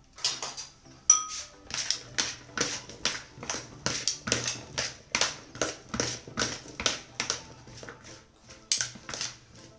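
A spoon mixing chopped parsley and coriander with oil and spices in a bowl: quick, even strokes about two and a half a second, with a brief pause near the end.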